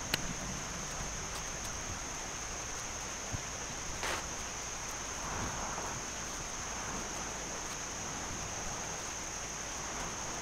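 Steady outdoor background noise with a constant high-pitched hum, and a few faint clicks and soft rustles from a catfish being filleted with a small knife on paper over a glass table.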